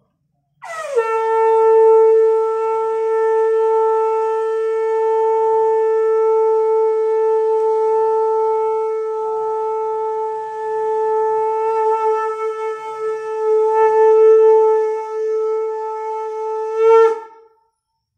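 A conch shell (shankha) blown in one long, steady note lasting about sixteen seconds. It drops quickly into pitch at the start and swells in loudness briefly just before it cuts off.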